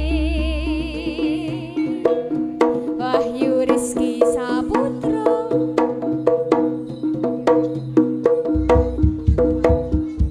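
Live jaranan ensemble music. A held, wavering melody line fades out about a second and a half in, then struck tuned percussion and drums play a quick, even beat, with deep drum strokes joining near the end.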